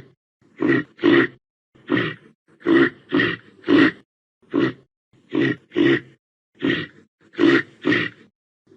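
Reindeer grunting: a string of short, deep grunts, often in pairs about half a second apart, about a dozen in all.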